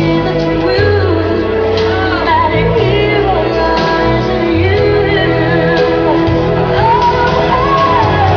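Loud song with a sung lead vocal over held bass notes, echoing in a large hall: the music for a drag show number.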